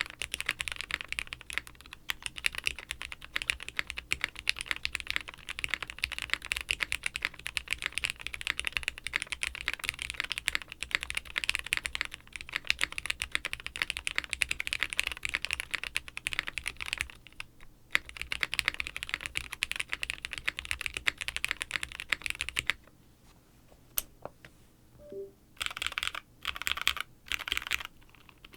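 Fast, continuous typing on a plateless tenkeyless mechanical keyboard with retooled Cherry MX Black linear switches and GMK keycaps, its flex cuts taped and a little cotton in the case. The typing stops about three quarters of the way through, and after a pause it returns as a few short bursts of keystrokes near the end.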